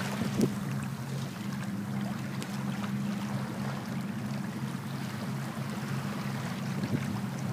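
Wind and water rushing past a sailboat under way, a steady noise with a low steady hum beneath it.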